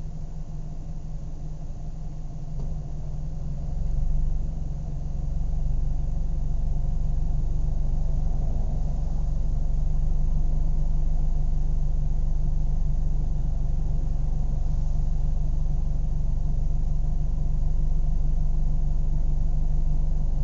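Car engine running at a steady low rumble. It grows louder about three to four seconds in, with a brief swell near four seconds, then holds steady at the higher level.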